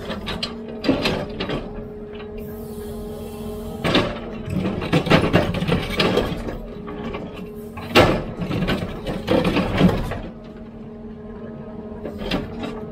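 HIDROMEK 102B backhoe loader's diesel engine running steadily under the clanks and knocks of the digging bucket and its linkage, the sharpest knock about eight seconds in.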